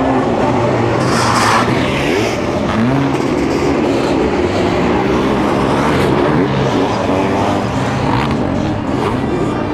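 Sidecar motocross outfits' engines running hard as two outfits race past close together, the pitch rising and falling with the throttle and gear changes.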